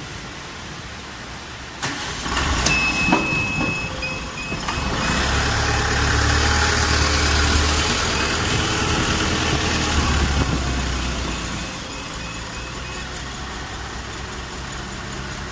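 Hydraulic plywood cold press in operation: a click, then its hydraulic pump motor starts up with a low hum and a thin high whine that pulses on and off. It runs loudest from about five to twelve seconds in as the press builds pressure, then eases to a quieter steady run.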